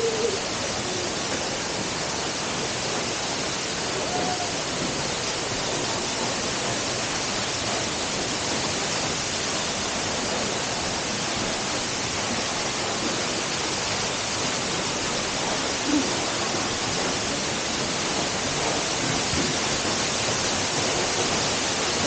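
Ashgill Force waterfall: a steady rush of falling water crashing onto rock, growing slightly louder toward the end as the fall is approached. A few faint, brief hoot-like calls show through it near the start and about a third of the way in.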